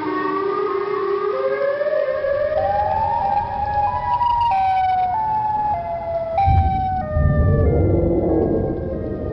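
Tornado warning siren whose pitch climbs in distinct steps for about four seconds, then drops back in steps. A low rumble joins in about six and a half seconds in.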